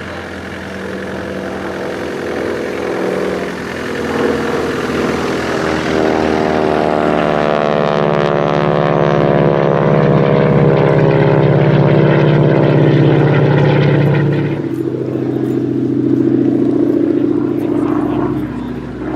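A North American Harvard's Pratt & Whitney R-1340 nine-cylinder radial engine and propeller during a display flypast. The engine sound builds to its loudest about ten to fourteen seconds in, then its pitch drops sharply as the aircraft passes.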